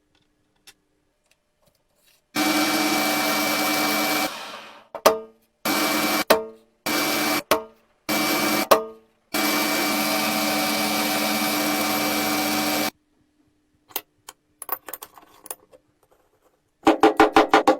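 Electric power tool motor switched on and off: a run of about two seconds, then four short bursts that each wind down in falling pitch, then a steady run of a few seconds. Some scattered clicks and handling knocks follow, then rapid stuttering on-off pulses near the end.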